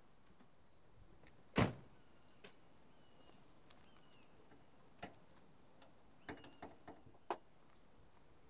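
A car door shuts with one loud thud, followed a few seconds later by a quick series of metallic clicks and knocks as the bonnet catch is released and the bonnet raised. Faint bird chirps in the background.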